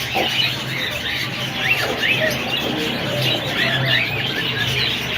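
A flock of caged parrots chattering together, a dense mass of short chirps that rise and fall in pitch, over a steady low hum.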